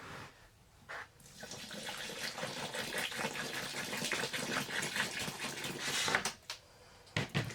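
Warm water pouring into a container of dry potting mix, a steady splashing pour from about a second in that stops about six seconds in.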